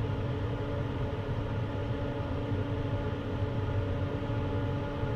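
Laminar flow cabinet's blower fan running steadily: a constant hum with even air noise.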